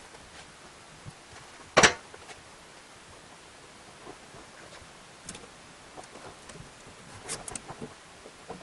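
One sharp knock a little under two seconds in, then a few light clicks and taps, over a faint steady hiss.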